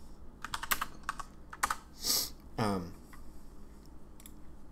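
Typing on a computer keyboard, in short runs of keystrokes, with a brief breath and a short low vocal murmur partway through.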